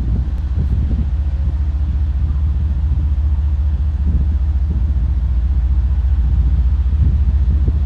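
Low, steady rumble of the diesel engines of GE ES44C4 locomotives approaching under power at the head of a freight train, slowly growing louder.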